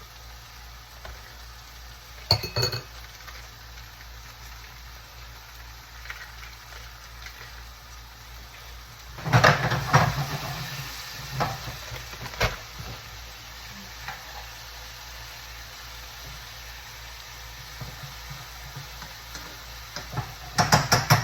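A utensil clinking and scraping against a bowl while a cream cheese filling is mixed: a brief clatter about two seconds in, a longer run of clinks around nine to ten seconds, a couple of single clicks, and another quick burst near the end, over a steady low hiss.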